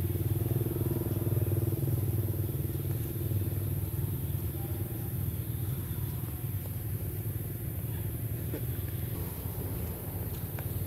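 An engine running steadily: a low, pulsing hum, a little louder for the first few seconds, with a couple of faint clicks near the end.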